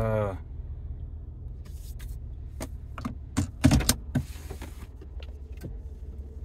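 Car cabin noise: a steady low rumble with scattered clicks and knocks in the middle, the loudest cluster around the middle of the stretch.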